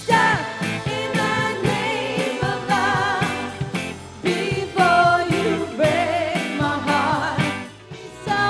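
Upbeat music with female voices singing over a steady beat, with a short drop in level near the end.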